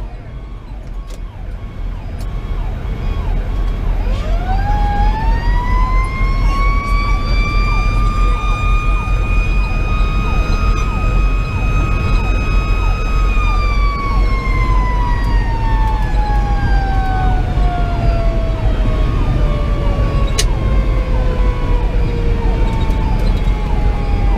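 Federal Q2B mechanical siren winding up sharply about four seconds in, holding a high steady wail for several seconds, then slowly winding down in pitch as it coasts. Underneath is the steady drone of the fire engine's Detroit Series 60 diesel, heard from inside the cab.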